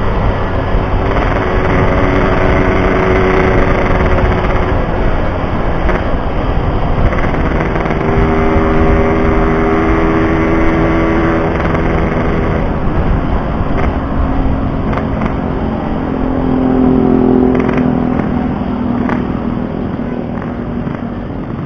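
Yamaha RX-King 135cc two-stroke single-cylinder motorcycle engine running on the move, its pitch rising and falling as it revs through the gears, over a steady low rumble of wind and road noise.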